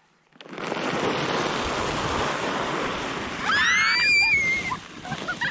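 A sled carrying two children sliding over icy, crusted snow: a steady scraping hiss that starts about half a second in and fades near the end. About three and a half seconds in, one child gives a long, high, gliding squeal.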